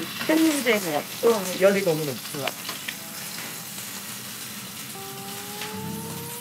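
A salmon fillet frying in oil in a pan, giving a steady sizzle. A voice sounds over it in the first two seconds, and a rising held tone comes in near the end.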